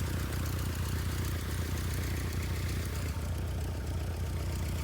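Cessna 150's Continental O-200 four-cylinder engine idling steadily on the ground.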